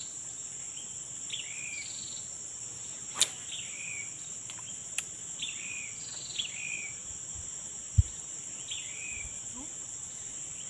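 Steady high-pitched drone of insects, over which a bird repeats a short call that falls in pitch, usually in pairs. A sharp click about three seconds in, a fainter one at five, and a dull thump about eight seconds in.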